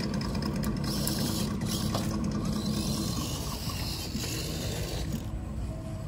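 Electric motors and geared drivetrains of scale RC crawler trucks whirring as they crawl over dirt and leaf litter.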